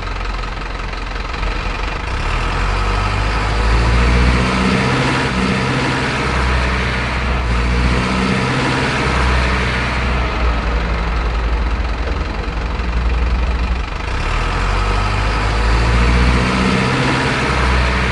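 Truck diesel engine sound running at idle, swelling in revs a few times.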